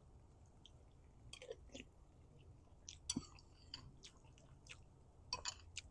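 Faint chewing and mouth noises from a man eating gumbo, a few soft scattered clicks.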